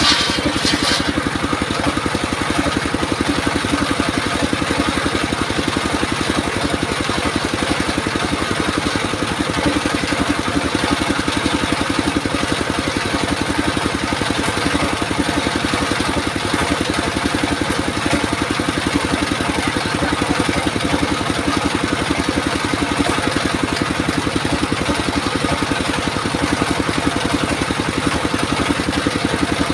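28 hp single-cylinder diesel engine running steadily under load, driving a portable circular sawmill that is ripping a log into boards.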